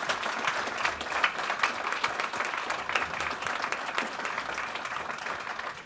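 Audience applauding: many people clapping together in a large room, thinning out near the end.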